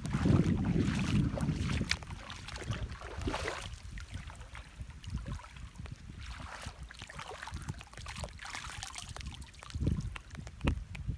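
Water splashing and sloshing with wind buffeting the microphone, strongest in the first two seconds and again near the end, with scattered small knocks.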